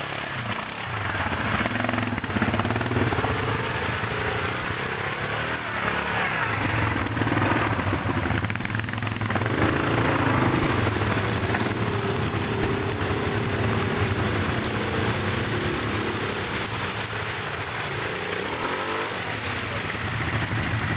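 ATV (quad bike) engine running, with the revs rising and falling as it is ridden.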